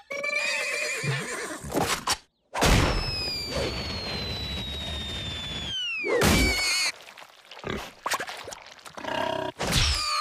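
Cartoon sound effects: a cry in the first two seconds, then a long falling whistle of about three seconds for a fall, ending in a loud splat into mud about six seconds in, followed by more short cries and crashes.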